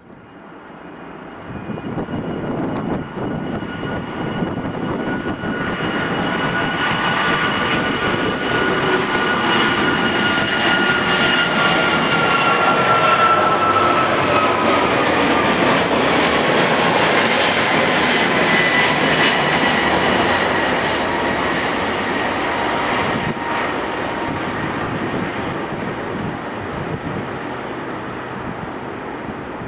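Airbus A340-500's four Rolls-Royce Trent 500 turbofans at takeoff power. The jet noise builds over the first few seconds, is loudest around the middle with a whine that slowly drops in pitch as the aircraft passes, and then fades.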